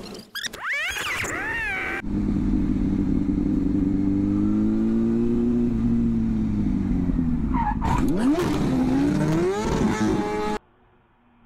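A Honda motorcycle's engine running steadily, its pitch rising slowly and then easing off. About eight seconds in it crashes: a screech, then harsh scraping as the bike slides on its side along the asphalt. The sound cuts off suddenly near the end. The first two seconds hold a noisy stretch with high gliding squeals.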